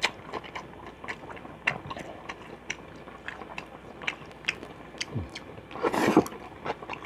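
Close-up eating sounds: a person chewing hot pot food, with many small mouth clicks and smacks. A loud slurp comes about six seconds in.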